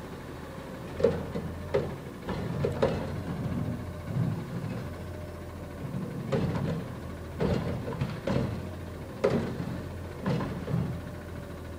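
Automated side-loader garbage truck running with a steady low engine drone, over a string of irregular metallic clanks and bangs from the truck as it works.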